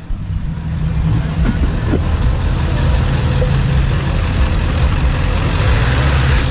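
Engines of lifted pickup trucks rumbling steadily as they roll slowly past in a line.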